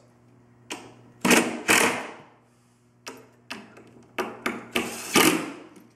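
Cordless drill-driver driving wood screws into a plywood bed frame, run in a series of short bursts.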